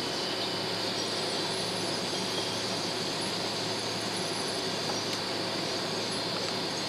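Jet airliner's engines and rolling noise heard inside the passenger cabin while the plane moves on the ground: a steady rumble with a low hum and a high hiss, holding an even level.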